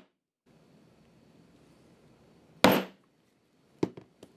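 A white poly mallet strikes a steel hollow punch once, hard, about two-thirds of the way in, punching a pad out of craft felt on a cutting mat. Three lighter taps follow near the end.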